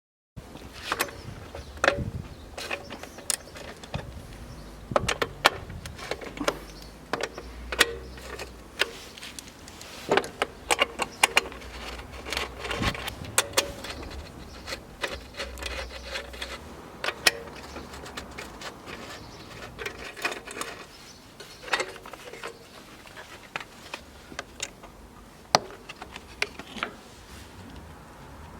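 Irregular clicks, taps and light rattles, as of small hard parts being handled and moved about, with a few louder knocks scattered through.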